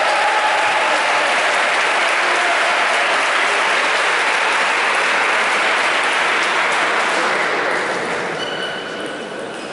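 Audience applauding in a sports hall, a steady clapping that dies away near the end.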